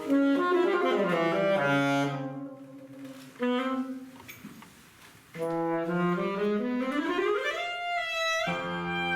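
A saxophone playing a free, rubato passage: a quick run down to a held note, a short pause, then a long smooth rise up to a high held note. Fuller accompaniment comes in near the end.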